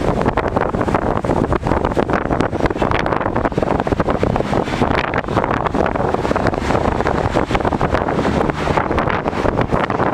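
Wind buffeting the microphone, a loud, gusty rumbling noise that rises and falls without letting up.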